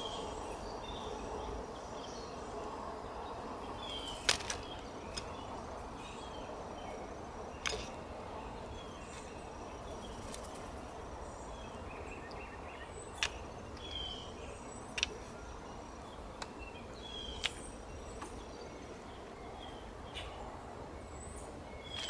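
Faint, steady outdoor background with scattered short bird chirps. A handful of sharp, isolated taps come from a blue jay landing on and pecking seed at a wooden tray feeder.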